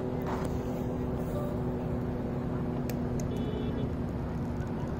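Steady low rumble of road traffic with a constant droning hum over it, and a couple of faint clicks about three seconds in.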